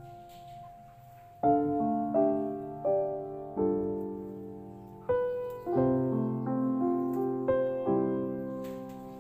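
Background piano music: slow chords, each note struck and left to fade.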